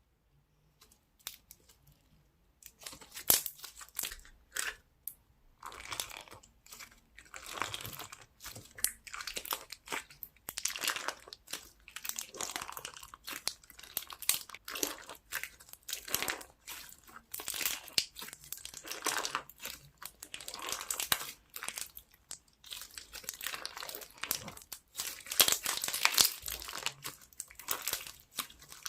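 Slime being squished, stretched and pressed by hand, giving an irregular run of sharp pops and short noisy squishes that begins about two and a half seconds in.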